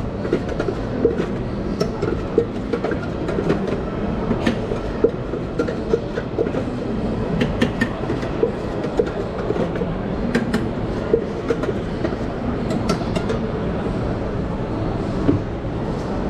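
Metal spoon clinking and scraping against stainless-steel containers as spiced sweet corn is mixed, in irregular clinks over the steady hubbub of a busy shopping mall.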